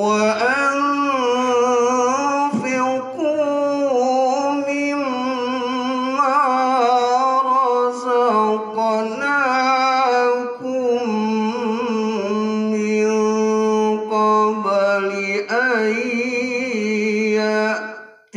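A man's solo voice reciting the Quran in a melodic, chanted style through a microphone. He holds long notes with wavering ornaments and breaks briefly for breath about three, ten and fifteen seconds in.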